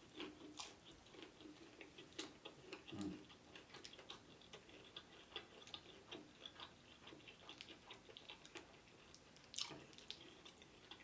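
Faint, close chewing of a fried egg roll: a run of small crisp crunches and mouth clicks, with a few louder ones.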